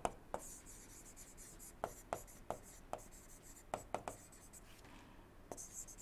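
A stylus tapping and scratching on a tablet screen while words are handwritten: faint, irregular sharp clicks every half second or so, with light scratching between them.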